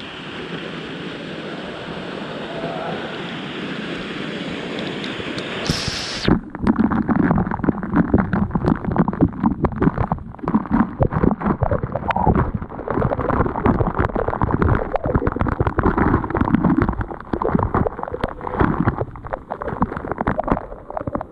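Steady rush of a waterfall. About six seconds in, the sound turns suddenly muffled and dull, full of irregular bubbling and churning, as heard with the camera underwater in the falling water.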